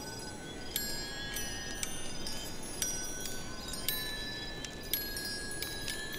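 Chimes tinkling: high metallic tones struck at uneven intervals, each ringing on and overlapping the next, over a steady low hiss.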